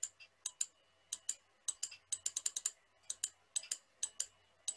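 Quick, irregular clicks of a computer mouse and keyboard as items are selected and deleted one after another, with a fast run of clicks about two seconds in.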